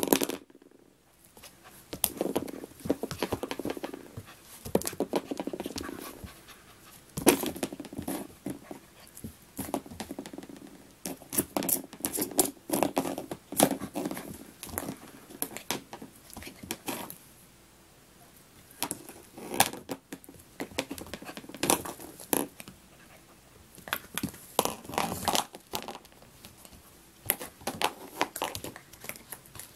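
A nine-week-old minidoodle puppy panting as it plays with a Hoover WindTunnel vacuum attachment, with irregular clicks, knocks and scraping from the attachment being pushed about and bitten. The knocking comes in bunches, with a quieter lull about two-thirds of the way through.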